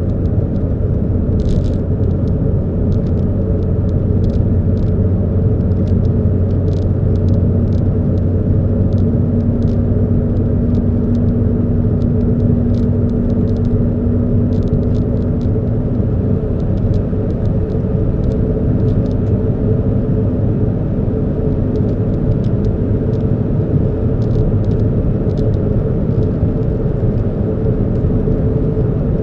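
Car running with a steady low engine hum and rumble, over which come scattered light ticks and rattles.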